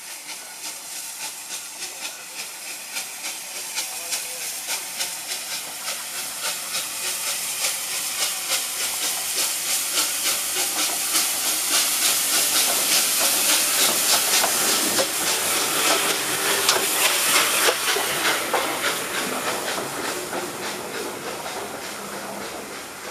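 Bulleid West Country Class Pacific steam locomotive No. 34007 'Wadebridge', a three-cylinder engine, working a train: steady rhythmic exhaust beats with hissing steam, growing louder as the engine draws near and passes, loudest about two-thirds of the way through. Near the end the beats ease and the coaches roll by.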